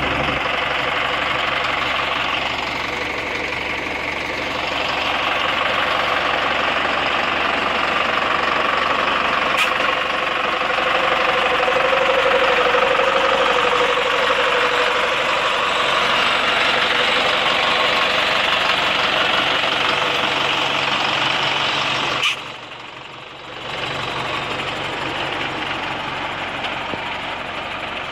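Zetor 9540 tractor's diesel engine idling steadily. About 22 seconds in, the sound drops off abruptly for about a second, then comes back.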